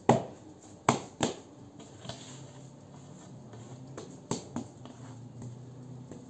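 Hands slapping and pressing stiff bulgur köfte dough in a large aluminium tray: three sharp slaps in the first second and a half, then a few softer slaps and squelches.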